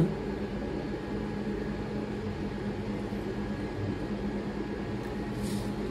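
Steady low background hum in a small room, with one constant low tone running under it. A faint, brief hiss comes near the end.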